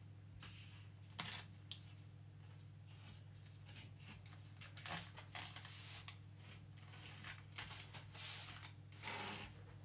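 Palette knife scraping and smoothing cake batter in a foil baking tray, in short irregular strokes, with soft crinkles of foil and baking paper near the end; a faint steady low hum underneath.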